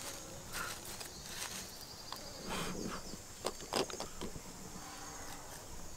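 Dry fallen bamboo leaves rustling and crackling in short bursts as someone crouching on the leaf litter shifts and handles things, over a steady high-pitched insect drone.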